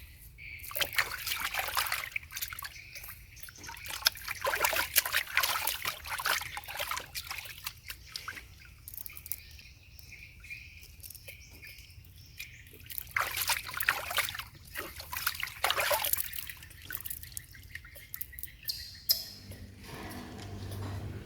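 Water trickling and splashing in two irregular runs of bursts, one in the first few seconds and another past the middle, with quieter stretches between.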